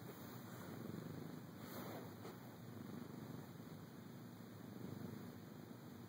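Domestic cat purring steadily and faintly, the purr swelling and easing every second or two.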